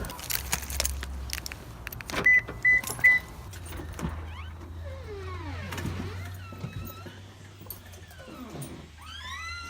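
Car running with a steady low hum inside the cabin. About two seconds in come three short, high electronic beeps, and through the second half a string of faint squeaks that slide in pitch.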